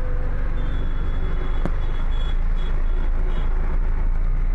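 Road traffic heard from inside a moving car's cabin: a steady low rumble of engines and tyres, with a single sharp click about a second and a half in.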